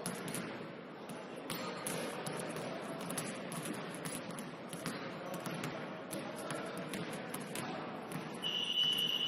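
Basketball game: a ball bouncing on the court amid scattered knocks and a steady gym hubbub, then a referee's whistle blows one long, shrill blast near the end.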